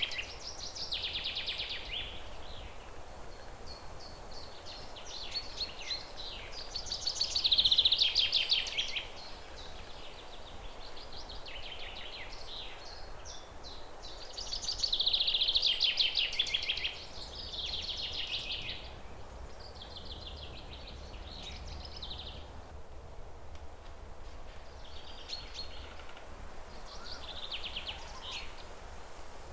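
Songbirds singing rapid trilled phrases, repeated every second or two, the loudest about seven and fifteen seconds in. A steady background hiss runs underneath.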